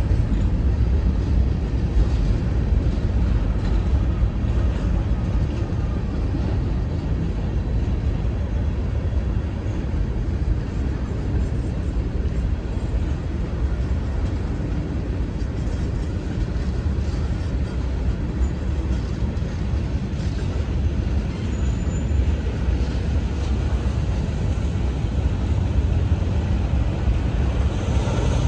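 Freight train rolling past, a steady low rumble from its wheels and cars that holds evenly throughout.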